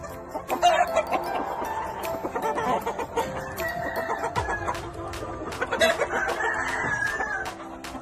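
Gamefowl roosters crowing and clucking, with two long crows in the second half, over background music with a steady beat.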